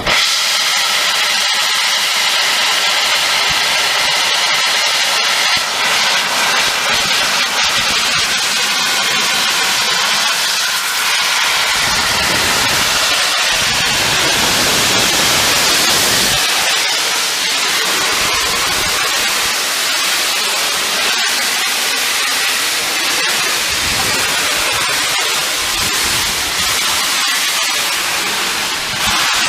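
Peppercorn A1 steam locomotive Tornado letting off steam in a loud, steady hiss that holds without a break.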